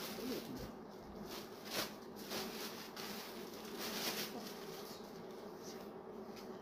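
Soft rustling of a cotton saree being handled and unfolded, with a couple of brief rustles about two and four seconds in, over a faint steady hum.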